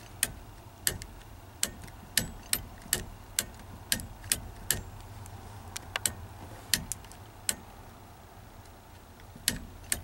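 A series of sharp, brief clicks at an uneven pace, roughly two a second, pausing for about two seconds near the end before starting again.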